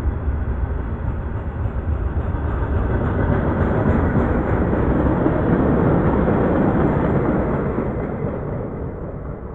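Freight cars' wheels rolling and rumbling along the rails as the tail end of the train passes. The noise fades away over the last couple of seconds as the last car moves off.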